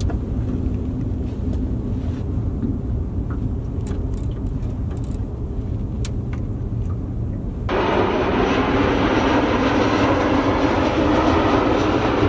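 A low steady rumble with a few faint clicks, then, about eight seconds in, the loud steady engine noise of a jet airliner passing low overhead, which sets in suddenly and holds.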